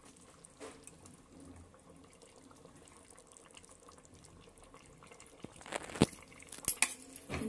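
Faint wet squelching and dripping as a cloth spice bundle is worked loose and lifted out of a stew in an aluminium pressure cooker. Near the end come a few sharp clinks of the metal knife against the pot.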